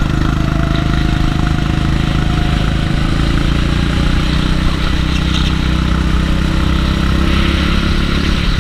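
Go-kart's small engine running steadily at a fairly even pitch, heard close up from onboard the kart.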